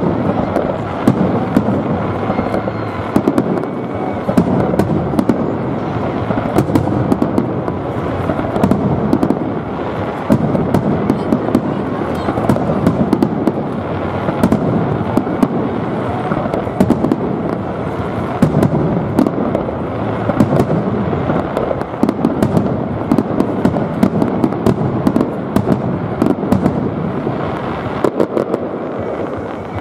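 Fireworks display: a continuous barrage of aerial shells bursting, many bangs overlapping, with the crackle of glittering stars throughout.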